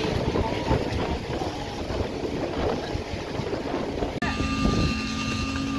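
Concrete-pour machinery running: a rough, busy engine noise that cuts off abruptly about four seconds in and gives way to a steadier engine hum with a higher whine above it.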